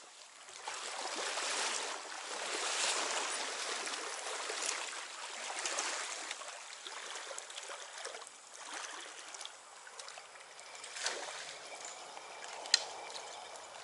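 Creek water running and trickling, swelling and easing, with a couple of sharp clicks near the end.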